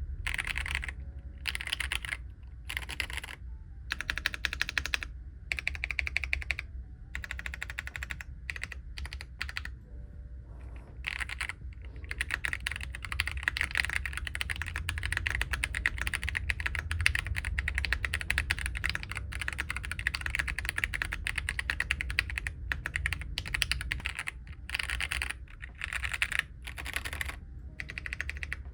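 Typing on a Royal Kludge RK R65 mechanical keyboard, with the deep 'thocky' keystroke sound. It comes in short bursts with brief pauses at first, then runs fast and continuous for about twelve seconds before breaking into bursts again. A steady low hum sits underneath.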